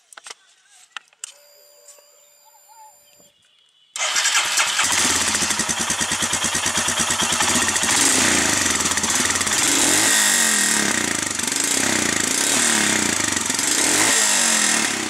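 BS4 Royal Enfield Himalayan's 411 cc single-cylinder engine started about four seconds in after a few clicks, then running loudly at its exhaust, the revs rising and dropping a few times.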